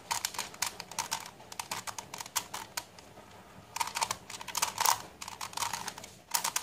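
Plastic face-turning octahedron puzzle being turned quickly through an algorithm: runs of rapid clicks as its faces turn, with a short pause just past the middle.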